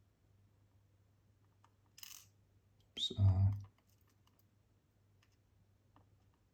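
Small lock parts being handled on a tabletop: faint ticks, a short light rattle about two seconds in, then a sharp click followed by a brief, heavier knock a second later.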